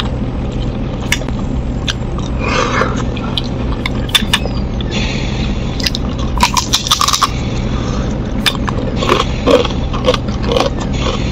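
Close-up eating sounds: a spoon scraping and clicking on a plate, with crunchy bites and chewing of food held in the fingers. The crunching is densest about six to seven seconds in and comes again near the end.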